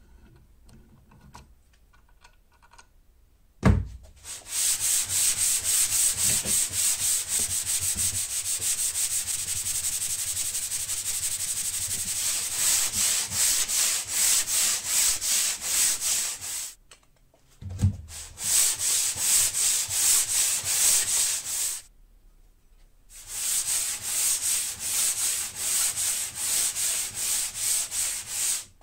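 A steel plate is rubbed back and forth by hand on a strip of abrasive cloth to flatten it, making a steady rasping scrub in quick even strokes. It comes in three runs with two short pauses, and a thump as the plate is set down just before the first run and again in the first pause.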